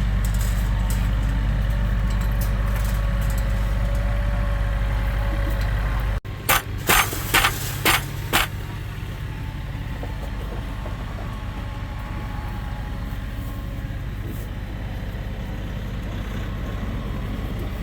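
A vehicle engine running steadily with a low hum. About six seconds in, the sound changes abruptly, and a quick run of five or six sharp knocks follows. The engine then runs on more quietly.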